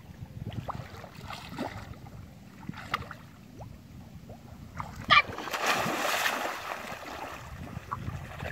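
Shallow muddy paddy water sloshing as people wade through it. About five seconds in there is a short high-pitched cry, then a loud rush of splashing lasting a second or two.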